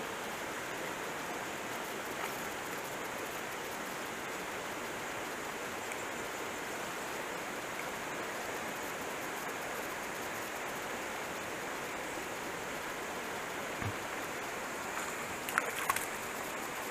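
Steady rush of a flowing mountain creek, with a few brief sharp sounds near the end.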